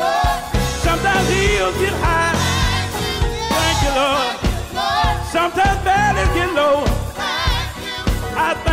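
Gospel song: a lead voice sings with vibrato over bass and a steady drum beat.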